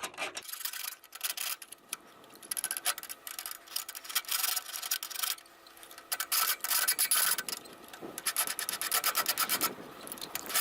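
Hand file scraping back and forth on a metal latch in runs of quick strokes with short pauses, filing down a raised burr.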